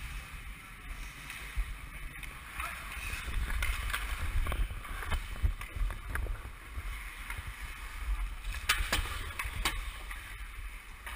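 Hockey skate blades scraping and carving on the ice in rhythmic strides, with a low rumble of wind on the microphone. Scattered sharp clicks of stick blades and puck on the ice come through, most of them in the second half.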